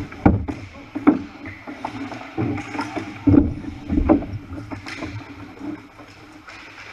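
Ice hockey game sounds: about half a dozen irregular knocks and thuds, typical of sticks, puck and boards, over a steady rink din that fades near the end.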